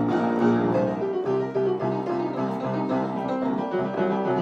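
Instrumental music with no singing: a keyboard-like instrument playing a run of quick notes, the accompaniment carrying on after the song's last sung line.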